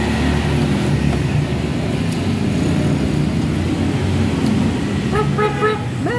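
Steady low rumble of road traffic passing by. A brief pitched tone comes in about five seconds in.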